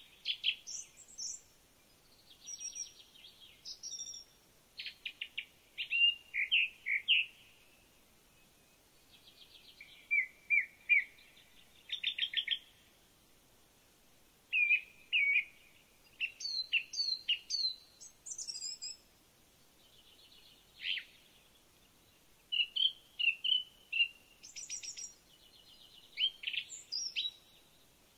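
Songbirds singing and calling: many short chirps, whistled notes and quick buzzy trills in phrases every second or so, with a few brief pauses.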